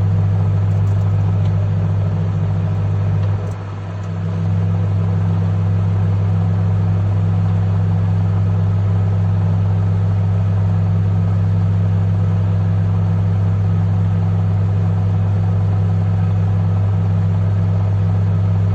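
Microwave oven running with a steady low hum, dipping briefly about three and a half seconds in.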